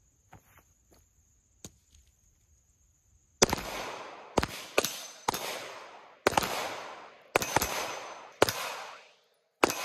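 Two Glock 19 9mm pistols fired in a speed race, about nine shots at an uneven pace over some six seconds, starting a few seconds in.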